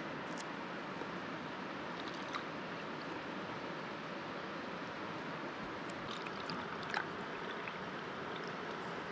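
Steady rush of a fast-flowing river, with a few light clicks and clinks from a glass bottle being handled, the largest about seven seconds in.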